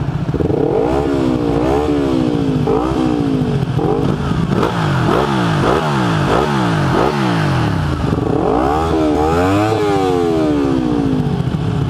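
Sport motorcycle engines at a standstill on the start line, revved over and over in throttle blips over a steady idle. The pitch rises and falls in slower sweeps near the start and end, and in quicker blips, one or two a second, through the middle.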